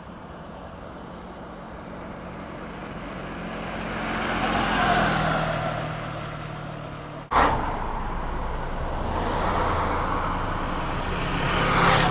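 Road traffic passing along a rural main road: a vehicle approaches, passes about five seconds in with its engine note dropping, and fades. An abrupt cut a little after seven seconds brings steady traffic noise, with another vehicle approaching near the end.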